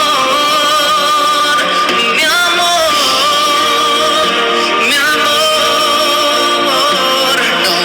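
Music: a song with sung vocals over instruments, carried by long held notes that waver slightly.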